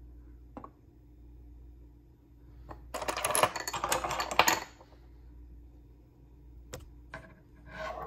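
Hard beach finds, shells and small stones, clattering and clinking together as they are handled: a dense rattle lasting about a second and a half starting about three seconds in, with a few single clicks before and after.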